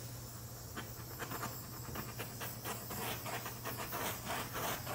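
Handheld butane torch burning with a steady hiss and a flame rush that pulses several times a second, swept over wet epoxy resin to pop surface bubbles.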